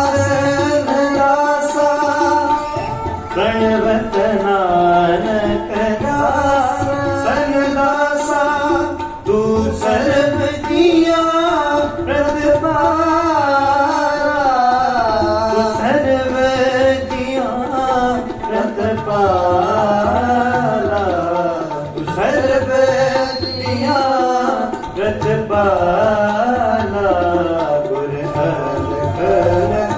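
Sarangi playing a sliding, voice-like melody with tabla keeping the rhythm beneath it, in a devotional kirtan.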